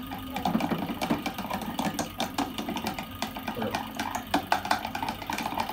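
Small spoon stirring a slime mixture in a bowl, with quick irregular clicks and scrapes of the spoon against the bowl.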